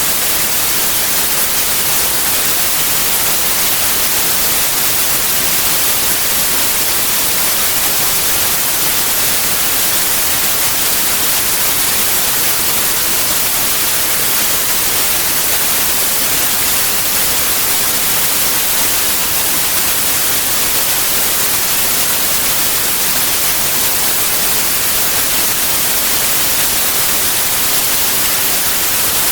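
Steady white noise: an unbroken, even hiss, brightest in the high end, that never changes.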